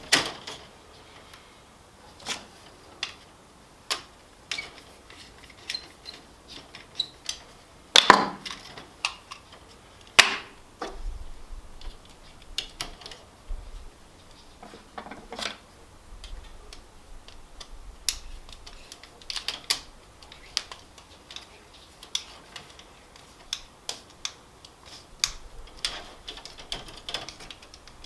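Irregular sharp clicks and knocks, a few of them louder, as a tandem circuit breaker is handled and fitted into a breaker sub panel.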